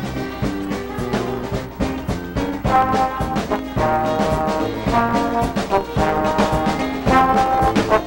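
Jazz big-band music: trombones and trumpets playing sustained chords over a steady drum beat, getting louder about three seconds in.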